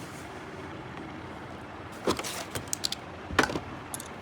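Series of short sharp clicks and knocks from a removed trolley-bag combination lock being handled and worked open, starting about two seconds in, with the loudest knock about three and a half seconds in.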